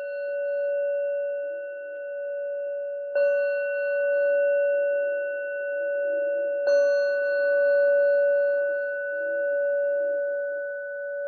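Metal singing bowl struck with a mallet twice, about three and then six and a half seconds in, over the ringing of a strike just before. It rings with a steady low tone and higher overtones, slowly wavering in loudness, marking the close of a meditation practice.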